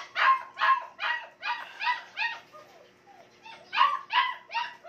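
German Shepherd puppies yipping and barking in short, high-pitched calls, about seven in quick succession, then a pause and three more near the end. They are excited while their food is being dished out.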